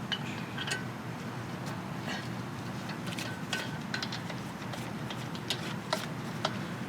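Scattered light metallic clicks and clinks over a steady low hum, several of the clicks sharper near the end; the sound of metal parts being handled during a tire change.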